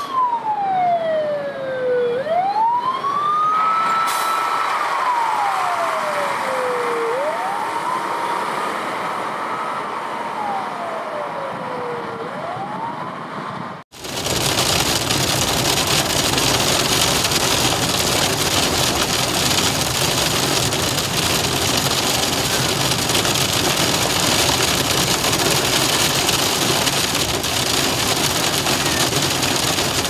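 Fire engine siren wailing, its pitch slowly falling and climbing back three times. About halfway through it cuts off abruptly to a steady loud hiss of heavy rain on a car's windscreen, with tyres on a wet road, heard from inside the car.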